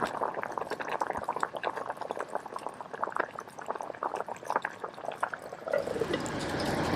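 Lightly salted cherry blossom trout sizzling on a hot grill, with many small irregular pops and crackles. About six seconds in, it turns into a denser, steadier sizzle.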